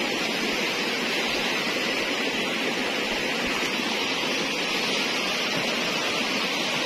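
Steady, even rushing of running water, with no separate splashes or knocks.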